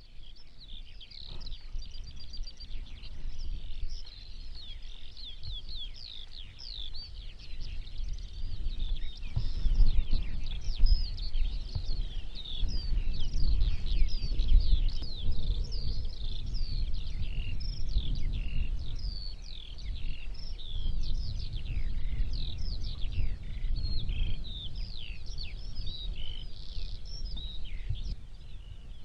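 Many small birds chirping in quick, overlapping calls throughout, over a low wind rumble on the microphone that gets stronger about nine seconds in.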